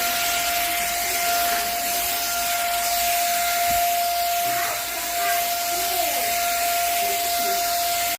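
Simplus handheld vacuum cleaner running: a steady motor whine over a loud rush of air, which cuts off sharply at the end.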